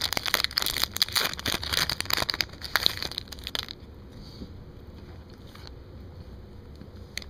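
Foil trading-card pack wrappers being crinkled and crumpled by hand, a dense crackle that stops about four seconds in, leaving only a few faint clicks and rustles.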